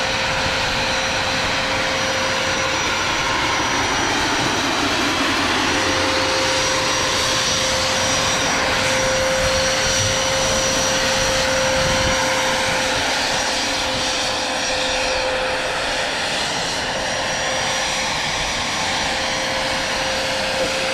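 Model gas turbine of a Vario MD600N radio-controlled helicopter running steadily: a loud rush with a constant high whine and a steady lower hum.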